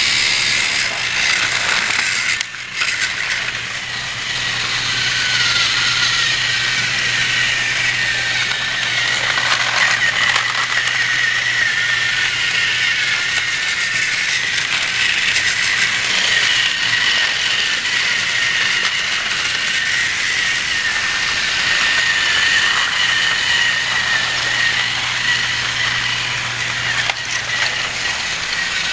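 Battery-powered Thomas TrackMaster toy train motors and gearboxes whirring steadily, with plastic wheels rattling over plastic track. A brief drop in the sound comes a little over two seconds in.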